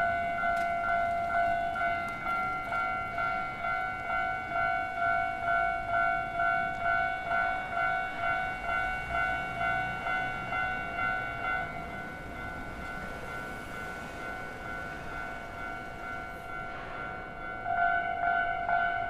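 Japanese railway level-crossing electronic warning bell ringing, a steady two-tone ding repeating about twice a second. It fades somewhat past the middle and comes back louder near the end.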